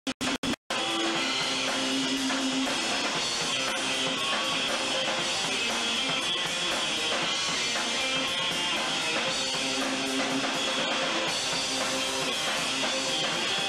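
Live rock band playing, with electric guitars over a drum kit. The sound cuts out and back in several times in quick succession at the start, then runs on unbroken.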